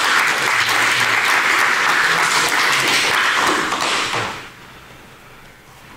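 A group of people applauding, the clapping dying away about four seconds in.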